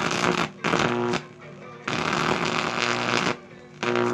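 Microwave oven transformer overloading a small shaded-pole fan motor: a crackling, buzzing arc with a steady electrical hum, coming in four bursts separated by short gaps, as the fan's coil is burned up.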